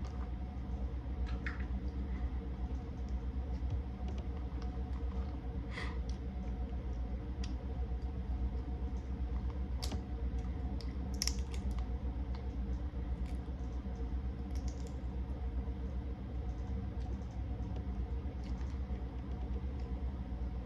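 Scattered small clicks and cracks of seafood shells being broken and peeled while eating, over a steady low hum.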